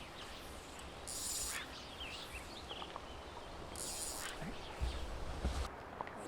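Quiet outdoor lakeside ambience with two brief high hissing swishes, the first about a second in and the second about four seconds in, and a short low wind rumble on the microphone near the end.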